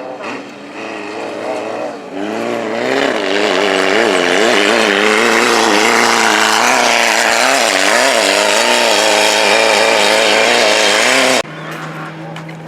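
Off-road race car engine, a Class 11 stock Volkswagen Beetle with its air-cooled flat-four, passing close at high revs. Its pitch wavers up and down as the throttle changes over rough ground. It grows loud about two seconds in and cuts off abruptly near the end, leaving a lower, steady engine drone.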